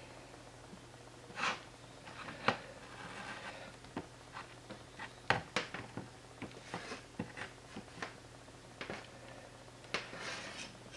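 Scattered light clicks and scrapes of a hot plastic-welding iron's tip working along a cracked plastic headlight mount, over a faint low steady hum.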